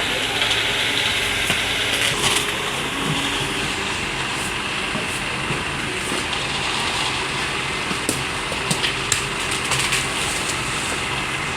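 Heavy diesel machinery (excavator and dump truck) engines running steadily, with a few sharp cracks or crunches about eight to ten seconds in.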